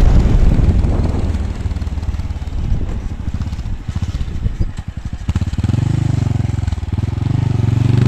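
Motorcycle engine heard from the rider's seat. It slows to a low, pulsing putter in the middle, then pulls again with rising pitch as the bike climbs.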